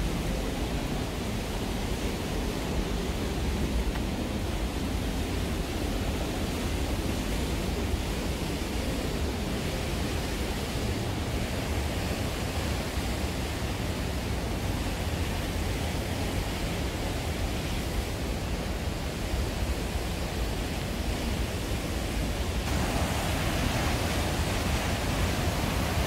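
Steady rush of white water from a creek and its waterfall in a gorge, with a deep rumble under the hiss. It grows brighter and a little louder a few seconds before the end as the falls come close.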